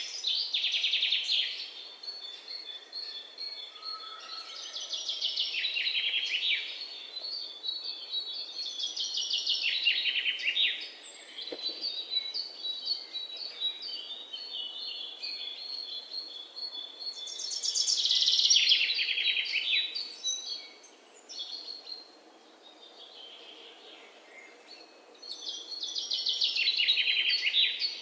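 Songbirds singing. Every several seconds one bird gives a fast trill that falls in pitch, and in between, a run of quick, high repeated notes carries on for about ten seconds.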